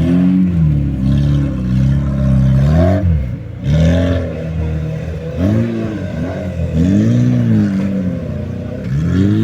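Off-road vehicle's engine revving up and down again and again in short bursts, with rough running between the revs.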